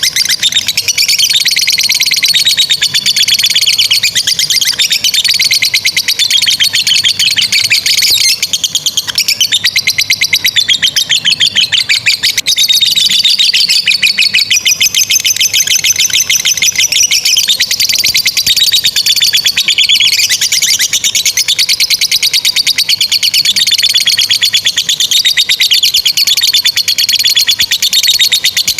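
Lovebirds in full song giving the long, unbroken chattering song known as ngekek panjang: very rapid high-pitched trills that run on without pause, rising and falling in pitch.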